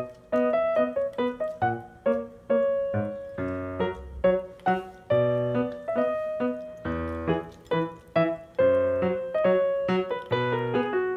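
Background piano music: a quick melody of short struck notes over a bass line.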